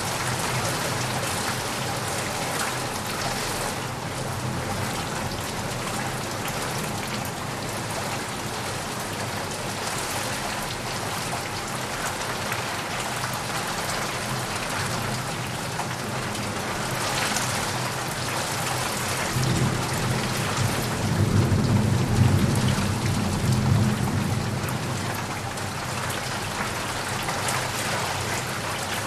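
Heavy rain falling steadily, with a low rumble of thunder that swells about two-thirds of the way through and then fades.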